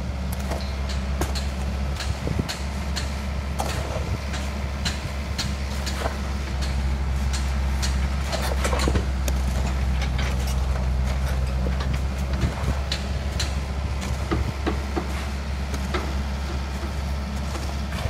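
Kobelco SK50 mini excavator's diesel engine running with a steady low drone, with frequent sharp clanks and knocks of the machine at work.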